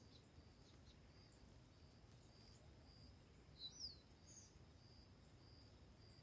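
Near silence with faint chirping from insects and birds: high chirps repeating about every two-thirds of a second, and a short falling bird call about three and a half seconds in.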